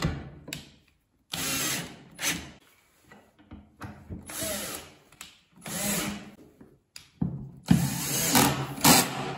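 Bosch cordless drill-driver driving screws through a wooden stop strip into the spoilboard, running in several short bursts, the longest near the end.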